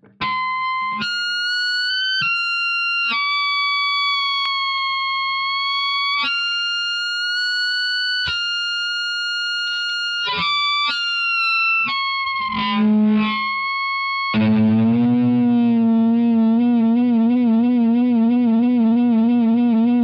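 Effects-processed tones played through an amplifier: a run of held, high tones stepping to a new pitch about every second, then, about two-thirds of the way in, a lower buzzing tone with a fast, steady wobble.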